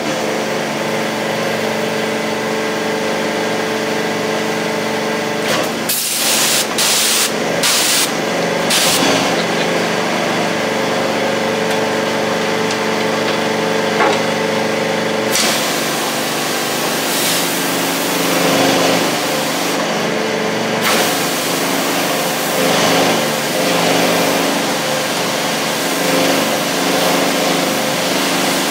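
Pressure washer running steadily, its long lance jetting water in several short bursts a few seconds in, then spraying more continuously from about halfway.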